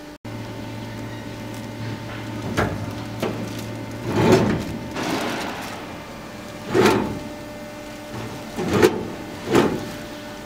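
Bench seat of an electric tricycle being adjusted: several separate sliding clunks and knocks, about five in all, as the seat is worked by hand under its front edge.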